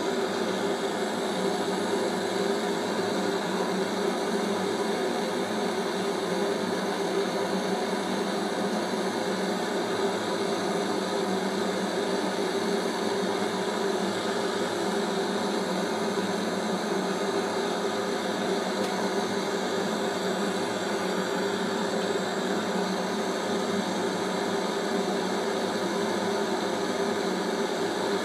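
Handheld gas brazing torch burning steadily, its flame heating a tungsten-carbide (widia) tip on a steel bar to red heat for brazing with a brass rod.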